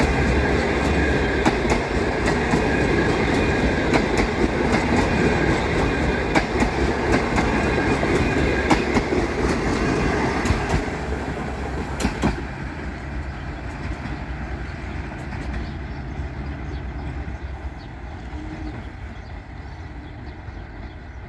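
Passenger train coaches rolling past close by: a steady rumble of steel wheels on rail, with sharp clicks as the wheels cross rail joints. About twelve seconds in the last coach goes by and the sound fades steadily as the train draws away.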